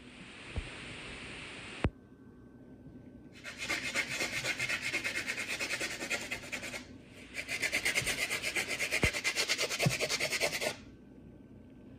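Plastic gumball machine parts scrubbed hard with a brush: rapid rhythmic rubbing strokes in two bouts of about three seconds each. It opens with a short hiss that ends in a sharp click.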